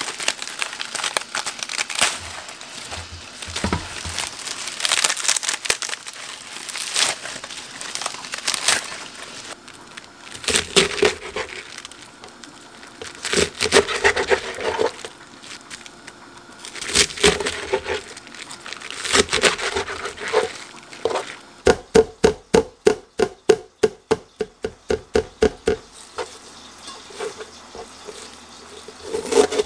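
Kitchen prep of spring cabbage: crisp leaves handled and cut with a knife on a wooden cutting board, in irregular crunching, rustling bursts. About 22 seconds in comes a run of quick, even chopping strokes, about five a second, lasting some four seconds.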